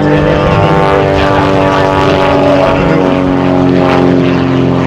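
Super Chipmunk aerobatic monoplane's piston engine and propeller droning steadily in flight, its pitch shifting a little about halfway through.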